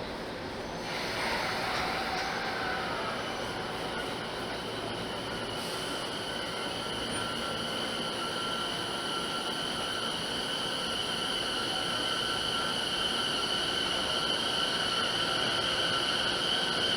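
Electric commuter train running, with a steady high-pitched squeal held on two tones. It comes in about a second in and grows gradually louder.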